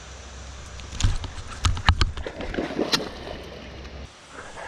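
Sharp knocks and clicks of a baitcasting rod and reel being handled close to the microphone, five or so strong ones between about one and three seconds in, over a low steady rumble. Water splashes as a northern snakehead strikes the chatterbait at the surface.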